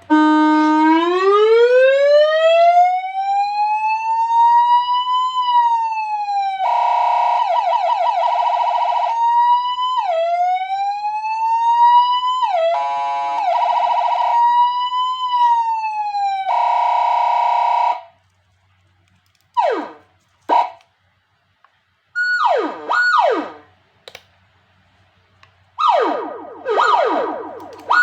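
Electronic police-escort siren cycling through its tones: a long wail rising slowly to a high pitch, stretches of rapid warbling, then, after a brief silence, a few short falling whoops. Near the end comes a fast, echoing yelp.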